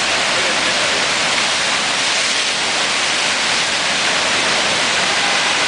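Rushing whitewater of the Eisbach river's standing surf wave, a steady, loud hiss of churning water.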